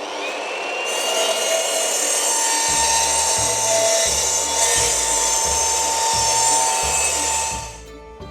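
Electric power saw cutting through timber: a loud, steady whine with the rasp of the blade in the wood, stopping near the end. Background music with a steady beat plays under it.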